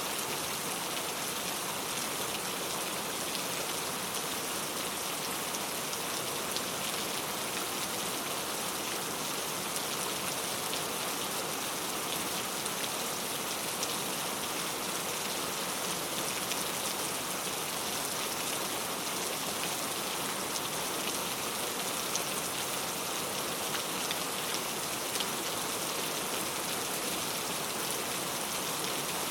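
Very heavy rain pouring steadily, a dense hiss of drops with fine individual drop ticks on a hard surface.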